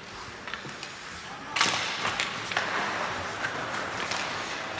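Ice hockey play in a rink: sharp clacks and knocks of sticks and puck, the loudest hit about a second and a half in, followed by a steady high hiss.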